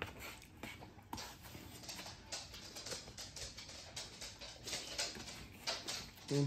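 Close-up eating sounds: a fork and knife clicking and scraping on a plate, with moist chewing, as many small clicks and crackles. Near the end comes a short low-pitched sound, the loudest moment.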